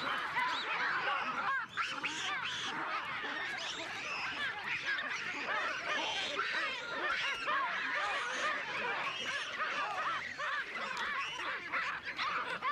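A baboon troop calling in alarm: many overlapping screams and barks at once, a dense, unbroken chorus of rising and falling calls as the animals flee a crocodile attack.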